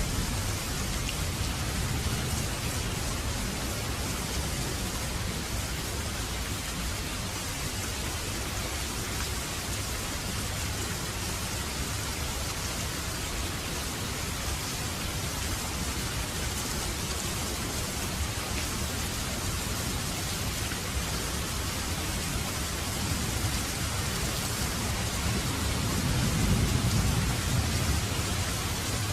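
Steady rain falling, an even hiss, with a low rumble swelling near the end.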